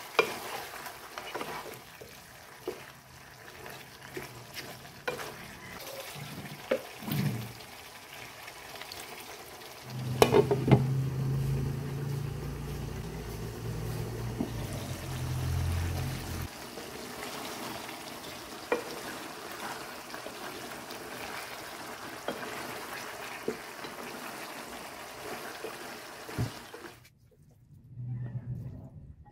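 Pork hock and bananas simmering in a dark braising sauce in a pan, a steady bubbling sizzle with a spoon stirring and scraping. About ten seconds in come a few sharp clanks as the glass lid is handled.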